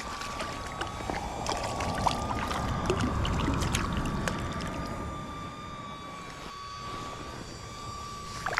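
Low rumble of wind and running water, with a quick run of small clicks and splashes in the middle, over a faint steady high tone.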